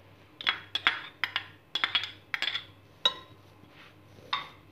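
Metal spoon clinking against a small ceramic bowl and a glass mixing bowl as boiled diced carrots are scraped into a couscous salad: about a dozen sharp, irregular clinks, a few of them ringing briefly.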